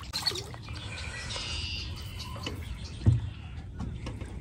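Birds chirping over a low steady rumble, with a single dull thump about three seconds in.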